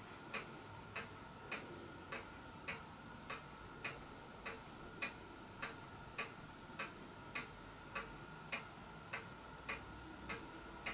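Faint, steady mechanical ticking, evenly spaced at a little under two ticks a second, over a faint steady hum.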